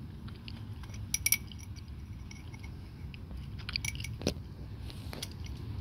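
Light clicks and taps of the canister oil filter housing and its new O-ring being handled, with a sharp pair of clicks about a second in and a few scattered ones later.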